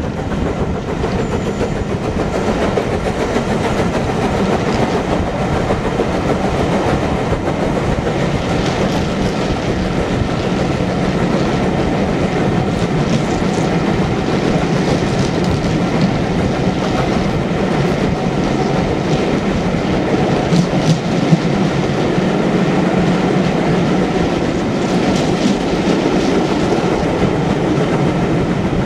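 Heritage railway coaches running along the line, heard from a window of the train: a steady rumble of wheels on the rails with clicks over the rail joints, and one sharper knock about two-thirds of the way through.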